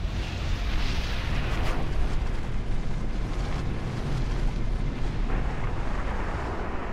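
Cinematic intro sound design for an animated logo reveal: a continuous deep rumble with whooshing noise over it.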